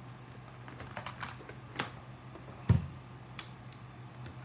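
Scattered light clicks and taps as a handheld radio transmitter and a small quadcopter are handled on a workbench, with one louder knock about two-thirds of the way through and a steady low hum underneath.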